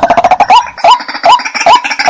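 White-breasted waterhen calling: a short "kwak" note repeated about every 0.4 s, over a dense rapid chatter of further calls.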